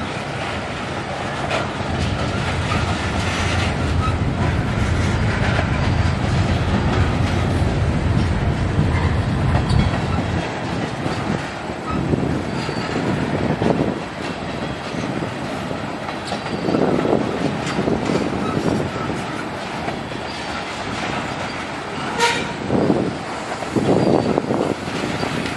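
Freight cars of a manifest train rolling past with a steady rumble and the clack of wheels over rail joints. The deep rumble is heavy for the first ten seconds or so, then drops away, leaving irregular knocks and clacks from the passing cars.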